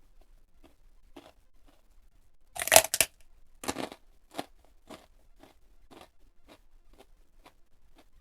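Mouth sounds of eating crunchy fried food, close to the microphone. There are two loud crunching bites, a little under three and about four seconds in, with soft chewing strokes about twice a second around them.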